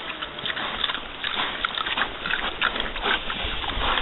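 Pigs eating at the ground, chewing with a scatter of short, sharp crunches. A low rumble comes in near the end.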